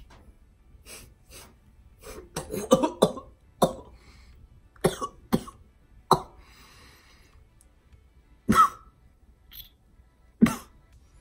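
A person's short coughs and throat-clearing while trying to work up a burp. There is a rapid cluster about two seconds in, then single sharp ones every second or two.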